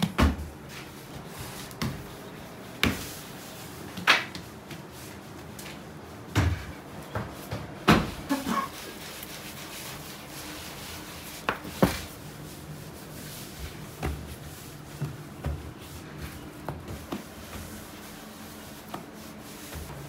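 Irregular soft thumps and knocks of balls of bread dough being handled and set down on a floured, cloth-covered bakery table, over a steady low hum.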